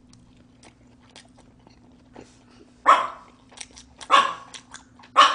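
A small dog barking three times in the second half, short sharp barks about a second apart, over faint chewing clicks.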